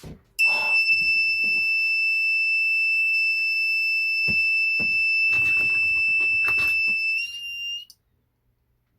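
Breathalyser kit's alarm buzzer sounding one continuous high-pitched tone, set off by breath on its alcohol sensor with the sensitivity set right on the cusp of the alarm, slightly oversensitive. The tone rises a little in pitch near the end and cuts off about eight seconds in.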